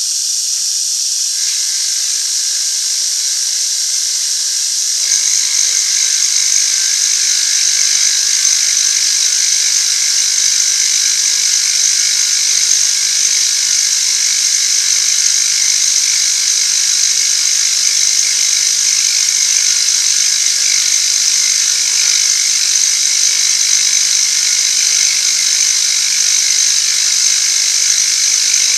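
A power-driven machine tool running steadily while cutting metal, with a steady hum under a high cutting hiss. The sound grows louder about five seconds in and then holds steady.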